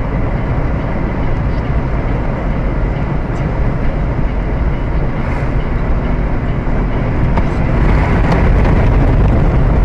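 Steady road and engine rumble of a car being driven, heavy in the low end, growing a little louder near the end.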